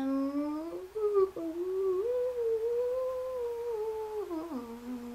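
A woman humming a long, wordless tune with her lips closed. The pitch starts low, rises about a second in, holds higher, then drops back down near the end.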